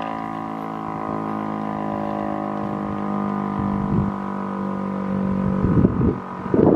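Federal Signal STL-10 outdoor warning siren sounding a steady, unbroken tone. Gusts of wind buffet the microphone near the end.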